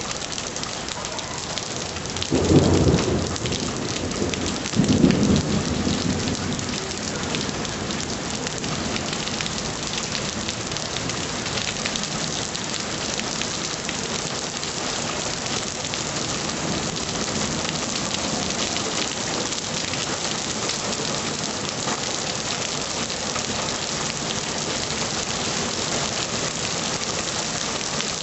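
Heavy rain pouring steadily, with two loud, low rumbles of thunder, one about two and a half seconds in and another about five seconds in.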